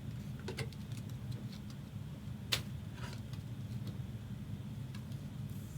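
Trading cards being handled: scattered small clicks and taps, with one sharper click about two and a half seconds in, over a steady low hum.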